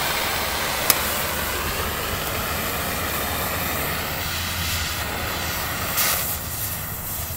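Oxyacetylene cutting torch flame hissing steadily against a steel plate. A sharp click about a second in, and a short louder rush about six seconds in as the cut starts throwing sparks.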